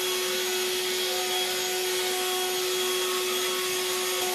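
Battery-powered cordless leaf blower running steadily, blowing dry leaves off bare dirt: a constant motor whine over a rush of air.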